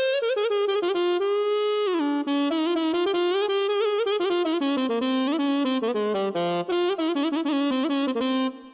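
Korg Kronos 2 synthesizer playing a single ornamented lead melody: quick runs of notes with wavering vibrato and a downward pitch glide about two seconds in. The line stops right at the end.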